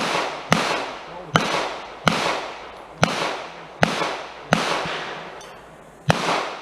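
Pistol shots fired in a string during a match stage: eight shots, mostly about three-quarters of a second apart, with a longer pause of about a second and a half before the last one, near the end. Each shot is followed by a long fading echo.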